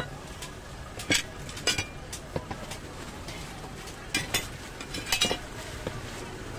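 A large plastic sack being opened and handled: scattered sharp crinkles and clicks, in clusters about a second in, around four seconds and around five seconds.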